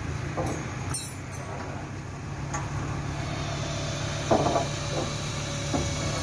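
Furukawa Unic UR-V340 truck-mounted crane at work: the truck's engine runs steadily, driving the crane's hydraulics as the boom swings the load. The chains on the hanging spreader bar give a few short clinks, the loudest about four seconds in.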